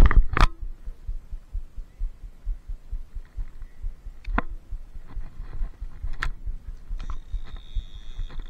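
Handling noise on a body-worn camera: two sharp knocks right at the start, then a low, uneven rumble and a few scattered clicks while a small catfish is held in the hands. About a second and a half before the end, a steady high tone sets in.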